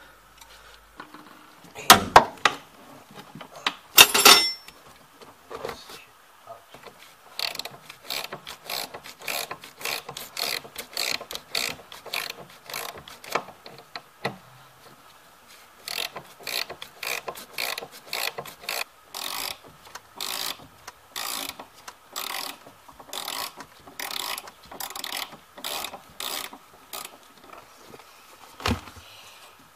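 A ratchet wrench clicking in repeated short runs as it turns the nuts on a rear strut's upper mount. Two sharp metallic knocks come a few seconds in.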